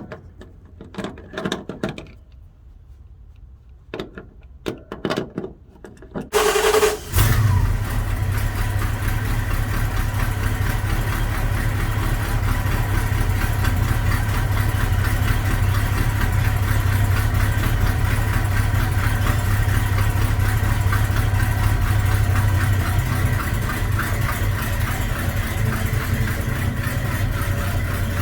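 A few scattered knocks and clicks, then the Ramcharger's 318 V8 is cranked briefly by the starter and catches about seven seconds in. It then idles steadily through Flowmaster 40 series mufflers with a low, even rumble.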